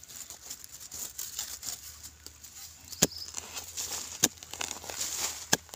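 Digging in dry, crumbly soil: earth scraped and crumbling with a steady rustle, broken by sharp knocks of the digging tool about three seconds in, a second later, and near the end.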